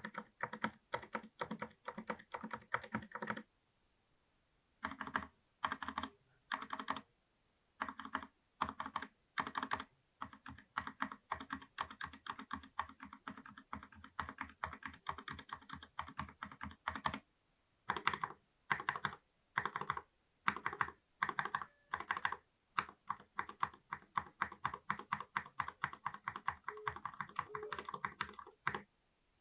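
Typing on a Vortex Tab 90 mechanical keyboard with Cherry MX Red switches: fast, dense runs of key clacks, broken by a few short pauses.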